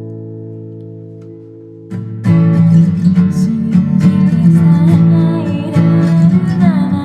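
Acoustic guitar: a strummed chord rings out and fades for about two seconds, then strumming starts again and keeps a steady rhythm.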